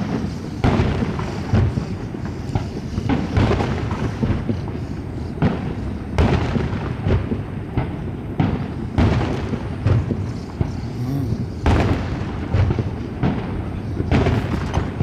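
Aerial firework shells bursting in a steady run of booms, about one a second, over a continuous low rumble.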